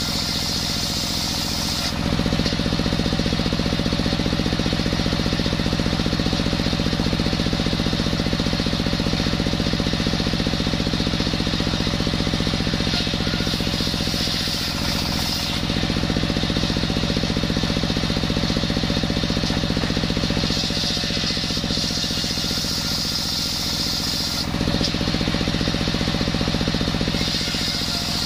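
Large table circular saw blade ripping a coconut-wood plank, driven by a stationary engine running steadily under load. The sound changes a few times as the blade bites into the wood and comes free at the ends of the cut.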